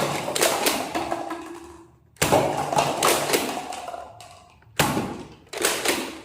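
Toy gun firing a few separate shots, each a sharp crack that fades away over a second or two, about two and a half seconds apart, with two close together near the end.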